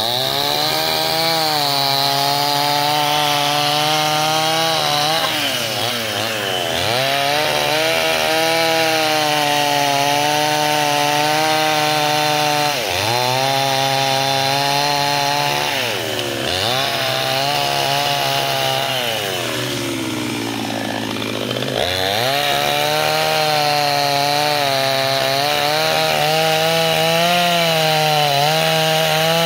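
Two-stroke chainsaw running at high revs, ripping lengthwise along a wooden plank. Its pitch sags and climbs back several times, with a longer, deeper dip about 20 seconds in.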